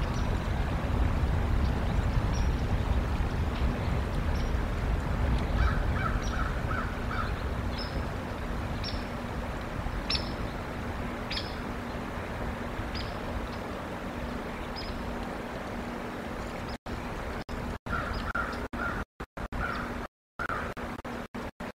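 Outdoor ambience: a steady low rumble of wind and background noise, with wild birds calling. Short high chirps come scattered throughout, and runs of four or five lower calls come about six seconds in and again near the end. The sound cuts out briefly several times near the end.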